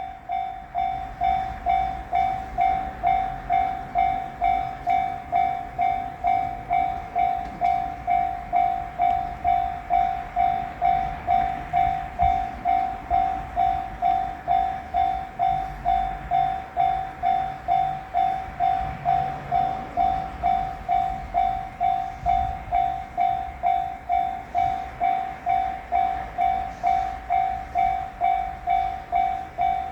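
Japanese railroad crossing warning bell ringing its repeated "kan-kan" alarm: one steady pitch struck a little under twice a second, without a break, warning of an approaching train.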